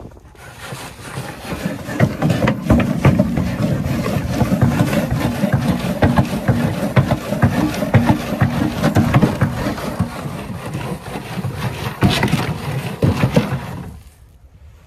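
Wooden sifter box being shaken back and forth, burn-pile dirt and debris rattling and scraping across its screen, with the box knocking against the tractor's loader bucket. It stops abruptly near the end.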